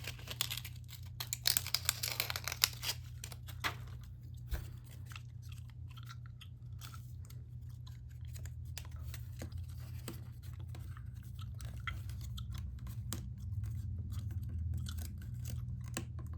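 Scratchy rubbing and crinkling as small model-rocket parts are worked by hand with sandpaper: many quick strokes in the first few seconds, then fainter and sparser. A steady low hum runs underneath.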